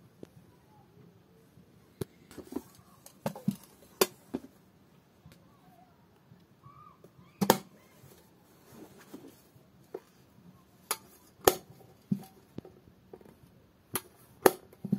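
A metal cigarette case being handled in the hand: about a dozen scattered sharp metallic clicks and taps, the loudest a little past halfway and near the end.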